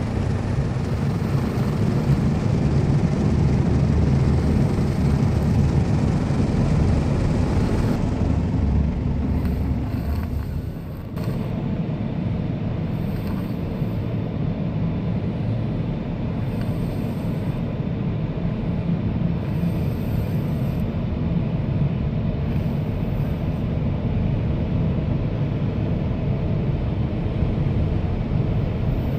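Automatic car wash machinery running: a steady low rumble, with a brief dip about eleven seconds in.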